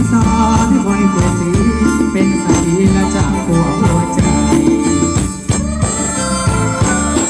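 Loud Thai ramwong dance music from a band, running with a steady beat over a continuous bass.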